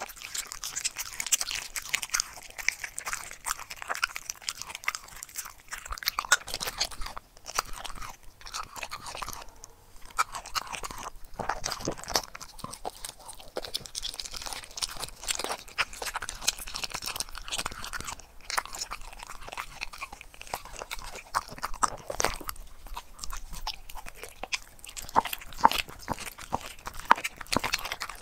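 A corgi chewing hand-fed raw meat: a dense run of crunchy, crackling chews and bites, with a few short pauses between mouthfuls.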